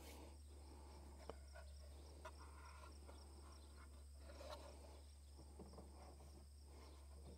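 Near silence: faint outdoor background with a low steady hum and a few very faint ticks.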